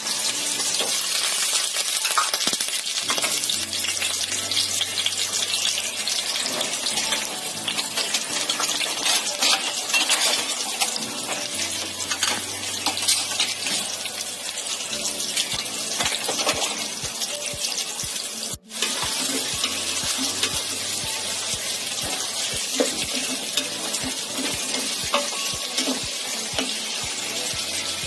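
Chopped onions and garlic sizzling in hot oil in a stainless steel pot: a steady hiss dotted with constant small crackles and pops. The sound cuts out for a moment about two-thirds of the way through, then goes on.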